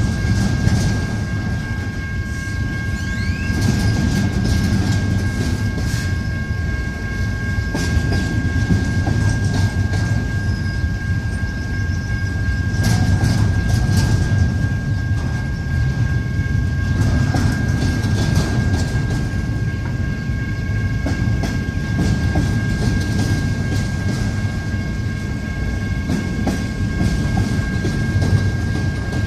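Intermodal freight train cars rolling past, a steady low rumble with the clickety-clack of wheels over the rail. A faint steady high tone holds throughout.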